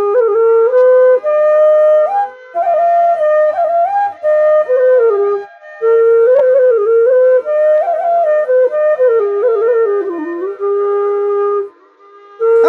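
Solo bansuri (bamboo flute) playing a melody in phrases with short breaks between them; it stops shortly before the end.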